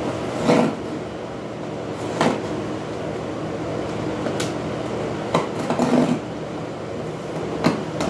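Hands picking at and pulling packing tape on a cardboard box, giving about six short scrapes and rips of tape and cardboard, over a steady background hum.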